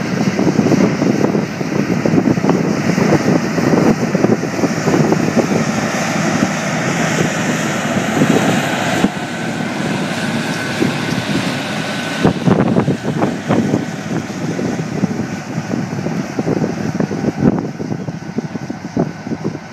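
A Buhler 435 hp four-wheel-drive tractor working under load as it pulls a 33 ft high-speed disk through corn stubble at about 10.5 mph. The engine runs together with the rough rushing of the disk gangs cutting soil and residue. It passes close and fades as it moves away near the end.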